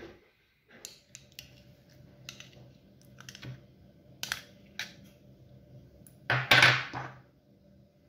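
Kitchen handling sounds as ingredients go into a plastic blender jug. There is a run of light clicks and taps, then a louder clatter about six and a half seconds in, over a faint steady hum.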